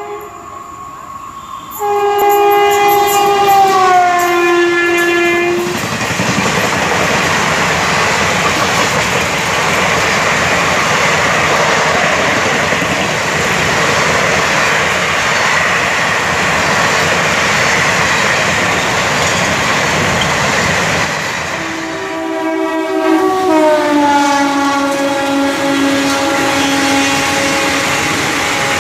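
A WAP7 electric locomotive at the head of a passenger express sounds its horn as it runs past at speed, the pitch dropping as it goes by. The coaches then rumble and clatter over the rail joints in a steady loud rush. Near the end a horn sounds again for several seconds, its pitch falling and then holding.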